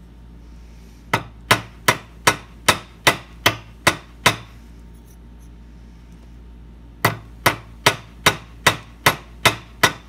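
A small hammer tapping lightly on a steel lock part resting on a bench vise's anvil, round-peening it so that the part holds, kept light so the part's round eye does not deform. The taps are even, at about two and a half a second: a run of about nine, a pause, then about eight more.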